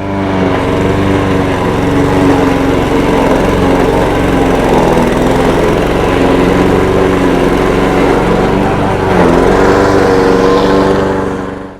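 Honda twin-blade lawnmower running under load as it cuts thick crabgrass, a steady engine note that sags briefly a few times, most clearly about nine seconds in.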